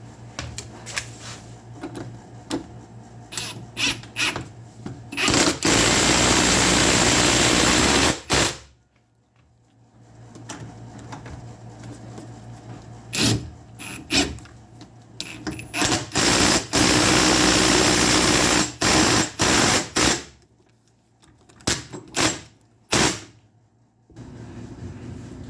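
Ryobi P238 18-volt impact driver driving lag screws, with short trigger bursts and two long loud runs of hammering, one about five seconds in and one about sixteen seconds in, each lasting a few seconds.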